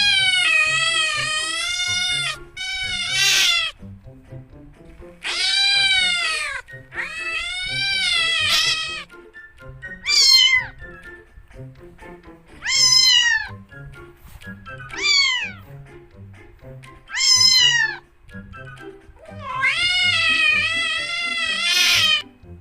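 Domestic cats meowing, about nine meows in all: some long and drawn out, others short and falling in pitch, over soft background music.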